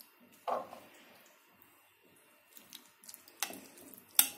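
A metal spoon spreading wet stewed cabbage in tomato sauce over the bottom of a glass casserole dish: a soft wet plop about half a second in, then a few light clicks of the spoon against the glass, the sharpest near the end.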